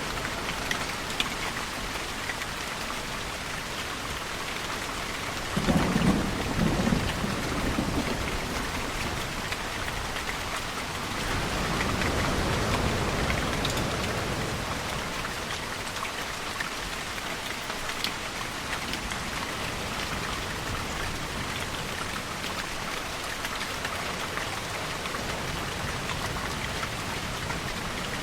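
Steady rainfall, with a roll of thunder about six seconds in that lasts about two seconds. A gentler swell of noise follows a few seconds later.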